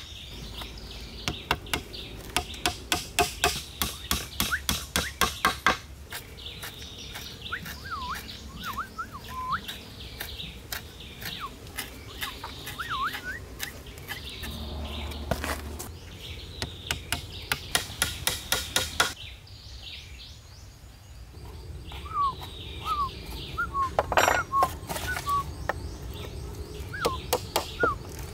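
Runs of quick, even hammer taps on wood, about three or four a second, as wooden pegs are driven into log poles. Small birds chirp in the pauses between the runs.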